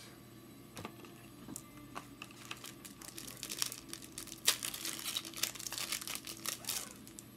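Foil wrapper of a Topps Chrome baseball card pack being torn open and crinkled by hand: a few light clicks at first, then dense crinkling from about three seconds in until shortly before the end.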